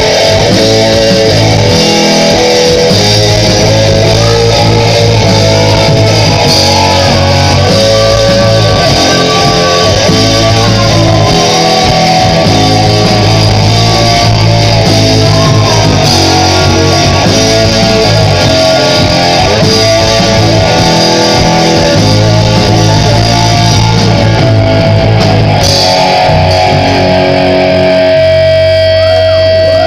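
Loud guitar-led music with plucked and strummed guitar over bass; the low end thins out near the end.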